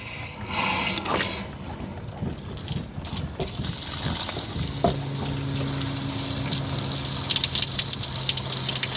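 Water rushing and spattering as the house water supply is turned back on and flows through the newly re-stemmed hose bib and out of the attached garden hose, after a few short squeaks in the first second or so. A steady low hum joins about five seconds in.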